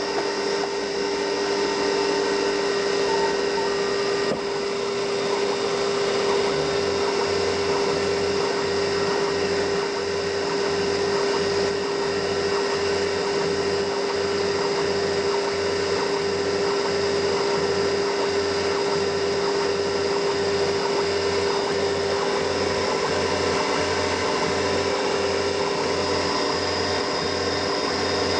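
CNC mini milling machine running with a steady spindle whine. About six seconds in, a regular low pulsing about once a second joins it as the cutter starts marking the work.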